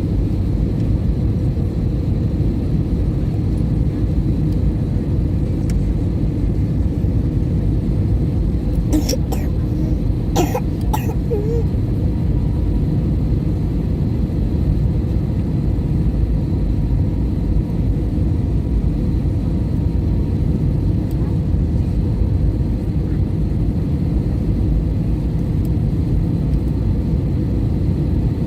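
Steady low rumble of a jet airliner's cabin noise, with a few brief sharp sounds about nine to eleven seconds in.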